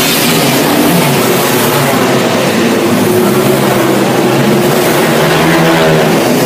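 Several small winged dirt-track race cars running together at high revs, a loud steady engine noise whose pitches rise and fall as the cars go through the turns.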